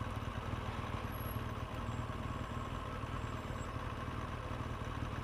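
Motorcycle engine idling steadily at a standstill, a low, even running sound.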